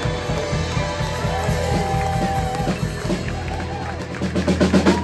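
Live rock band playing: electric guitar, keyboard and drum kit together, with a quick run of loud, evenly spaced hits near the end.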